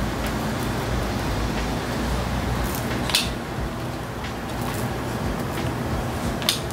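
Hand-held hair dryer running steadily, with a few short sharp ticks about three seconds in and near the end.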